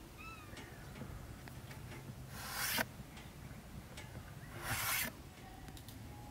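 Kitchen knife slicing through raw bread dough and rasping on the wooden board beneath, in two half-second strokes, the first about two seconds in and the second near five seconds.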